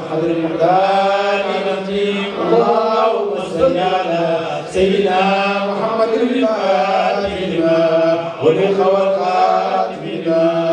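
Melodic chanting of an Arabic devotional prayer invoking blessings on the Prophet, Sufi dhikr-style recitation. It is sung in long held notes that break into phrases every second or two.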